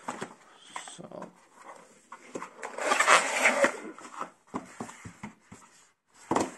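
Cardboard packaging being handled: a paperboard sleeve scraping and rubbing as it slides out of its box, loudest about three seconds in, with scattered small taps and clicks of card.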